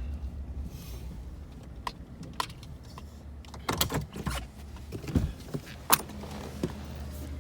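Vehicle engine idling with a steady low hum, under a series of short clicks and knocks from a car door being opened and someone climbing out.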